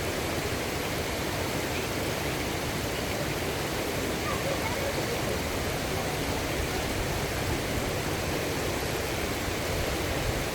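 Steady rush of water from a waterfall cascading over rocks, an even, unbroken noise.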